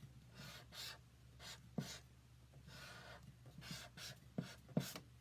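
Faint scratching of a pen drawing on paper: a series of short strokes with a longer one near the middle.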